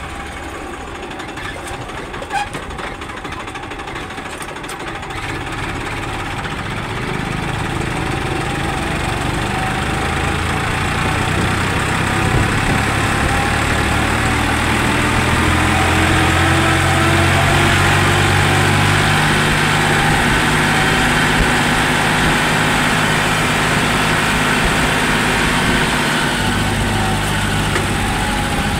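Farmtrac 60 tractor's diesel engine heard from the driver's seat as the tractor drives along the road. It grows louder and climbs slowly in pitch over the first dozen or so seconds as it gathers speed, then runs steadily.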